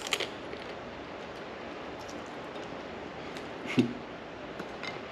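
A few short, sharp cracks and crackles of grilled blue crab shell being broken apart and eaten, over steady background noise.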